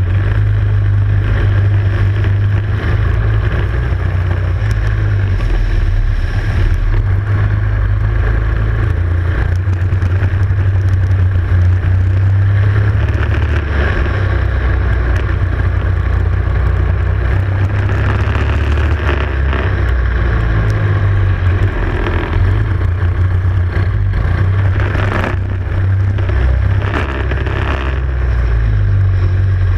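Prokart racing kart's engine running continuously at race pace, rising and falling with the throttle, heard from a camera mounted on the kart. A heavy low rumble sits under it throughout.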